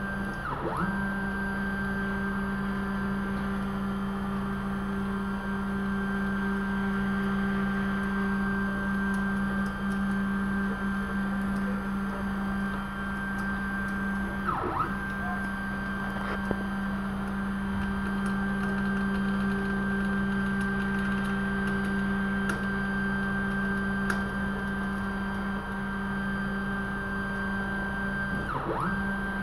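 Stepper motors of a CoreXY CNC router whining steadily as they drive the carriage diagonally back and forth in a test run for skipped steps. The pitch swoops down and back up each time the carriage stops and reverses, about every 14 seconds.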